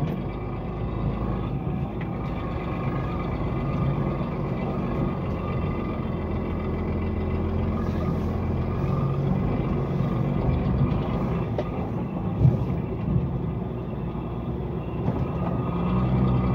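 Truck engine running steadily under way, heard inside the cab, with a single knock about twelve and a half seconds in.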